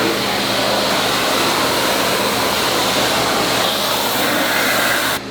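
High-pressure washer spraying water in a steady hiss over the steady hum of its pump motor. It cuts off suddenly near the end.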